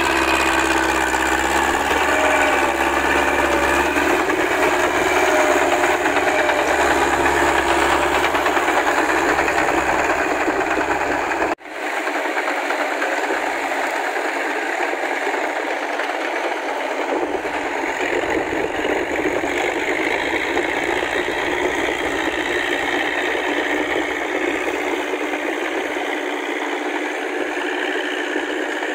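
Massey Ferguson tractor's diesel engine running steadily as the tracked tractor works a flooded paddy with a rotary tiller. About 11 seconds in, the sound cuts out for an instant and comes back with less low rumble.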